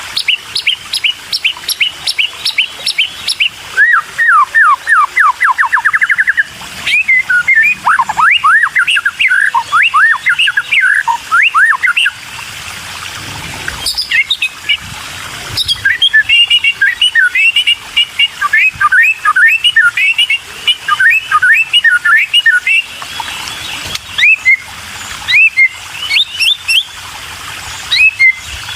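Murai chicks begging: rapid runs of short, high, downward-sweeping chirps in loud bursts, with short pauses between runs.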